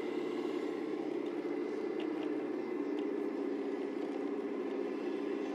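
A 1/14 scale RC semi truck's electric motor and gearbox running steadily: an even whirr with a faint high tone over it.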